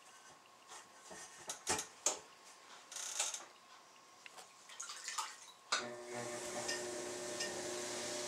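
Soft scraping and light taps of a brush painting wax onto the rim of an unglazed clay mask. Past halfway a steady hum with a hiss starts up and carries on.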